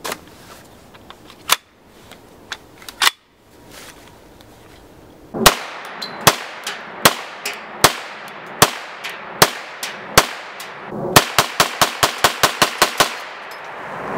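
Trailblazer Pivot semi-automatic 9mm carbine firing. After three quieter sharp cracks, it fires seven loud single shots evenly spaced a little under a second apart, then a rapid string of about ten shots at five or six a second.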